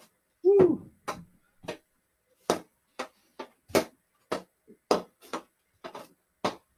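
Hockey stick blade tapping a stickhandling ball on carpet in quick, uneven strikes, about two or three a second, as the ball is pushed out, caught on the toe and snapped back. A brief falling tone sounds about half a second in.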